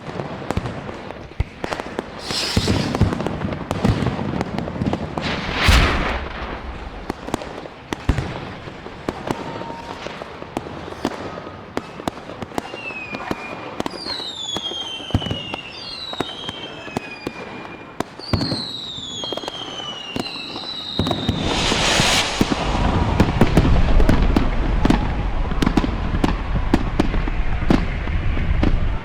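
Fireworks display: steady crackling and sharp bangs, with rockets hissing up a few times. In the middle come several whistles that fall in pitch, and from about two-thirds of the way through the booms thicken into a loud continuous rumble.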